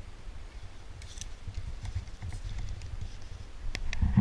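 Footsteps walking through snow, heard as dull, irregular thuds through a body-worn camera, with a few sharp clicks of gear. Near the end there is a louder clatter of knocks and rustling.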